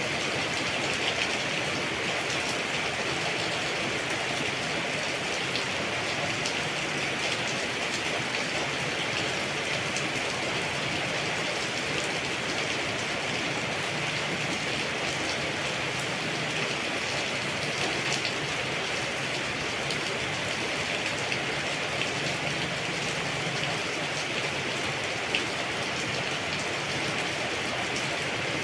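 Steady rainfall with scattered sharp drop ticks on leaves.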